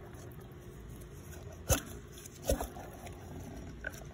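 Rattle from the Bafang e-bike hub wheel as it is worked by hand: two sharp knocks about a second apart over a faint steady background. It is taken for the rattle heard earlier, but not for the cause of the whine.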